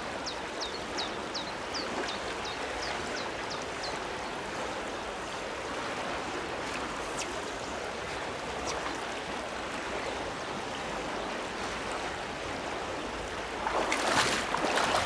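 Steady rushing of river water around a wading angler's legs, with a bird chirping a quick series of short high notes during the first few seconds. Near the end, louder splashing as his legs move through the water.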